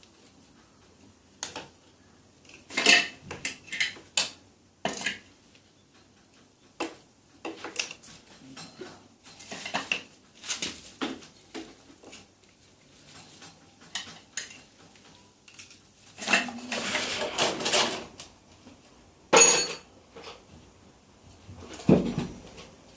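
Metal hand tools and parts clinking and clattering while a Dnepr MT 10-36 motorcycle engine is taken apart: scattered sharp clinks, a denser stretch of clatter about two-thirds through, then a bright ringing clink and a dull knock near the end.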